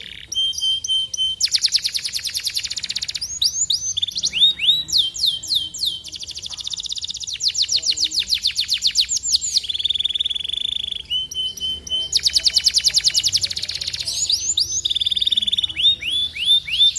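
Domestic canary song: long tours of rapid repeated notes, runs of quick downward-sweeping whistles, and a short steady buzzing trill a little past the middle.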